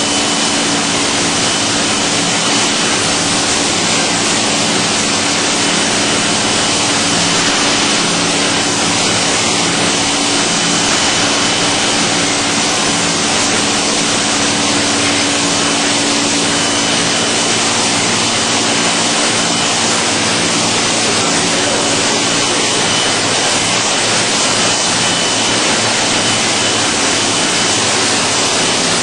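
LS-306 vegetable washing machine running: a loud, steady rushing noise with a low motor hum, part of which stops about three-quarters of the way through, and a faint thin high whine.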